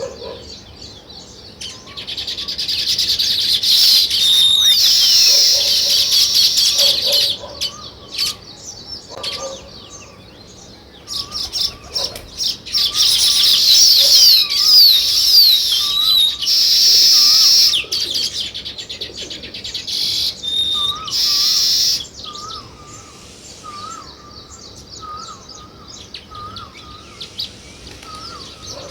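Sparrows chirping as a group in loud, dense bursts lasting several seconds, with quieter spells between. Underneath, a short wavering whistled note repeats about once a second, plainest in the last quarter.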